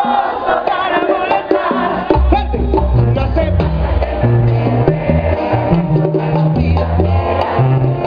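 Live banda sinaloense brass band playing loudly through a PA, with horns carrying the melody; about two seconds in, the tuba comes in with a stepping bass line.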